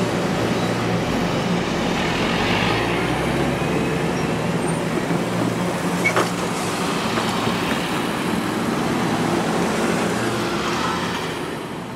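Heavy diesel engine running steadily under a broad rolling rumble, with a single sharp click about six seconds in; the sound starts to fade near the end.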